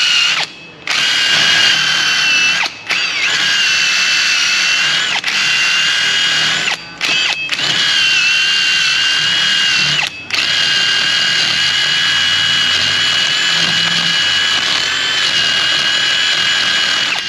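Cordless drill spinning an abrasive hub-cleaning disc against the rusty face of a truck's rear wheel hub, scouring off rust. It makes a steady whine that stops briefly several times as the trigger is let off and squeezed again.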